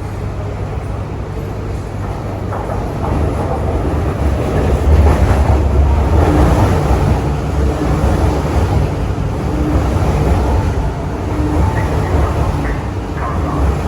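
CRRC Qingdao Sifang SFM47 metro train running into the station, its noise swelling about three seconds in and staying loud and low-pitched as it arrives alongside the platform.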